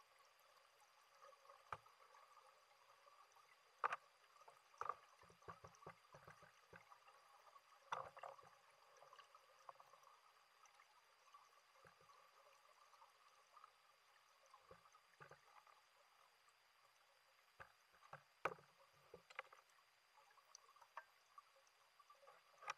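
Faint, muffled knocks and clicks over a low steady hiss, recorded underwater: about a dozen short taps, some in quick clusters, with near silence between them.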